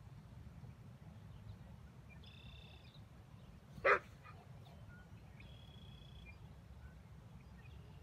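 Boxer dog giving a single short bark about four seconds in, over a low steady background rumble. Two faint, high, steady calls sound, one before the bark and one after.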